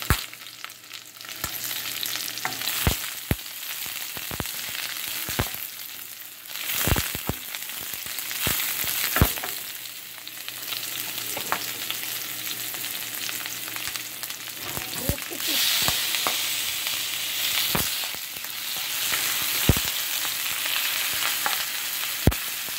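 Garlic and onion sizzling in a stainless steel skillet. A spoon stirs them and now and then clicks and scrapes against the pan. The sizzle grows louder about two-thirds of the way through.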